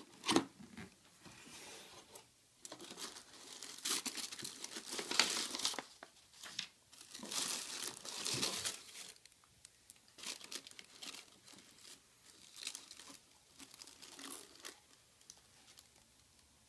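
Packaging crinkling and rustling as a shoe box is unpacked, in irregular bursts that are loudest in the middle and die down toward the end.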